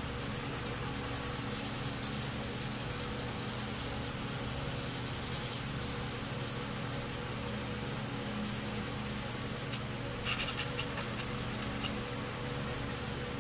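Hand sanding with a fine K-grit abrasive sheet on a sanding block, stroked rapidly back and forth over primer on a small plastic model hood, making a steady dry scratching rub. A few louder, scratchier strokes come about ten seconds in. The work is cutting down aerosol primer and its guide coat.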